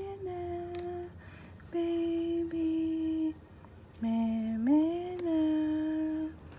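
A woman humming a slow lullaby in three long held notes, each sliding up into a steady tone, with short pauses between.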